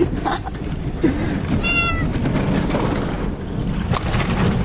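A cat meowing several times in the first two seconds, one cry higher and sharper than the rest, over the steady low rumble of a pickup truck heard from inside its closed cab.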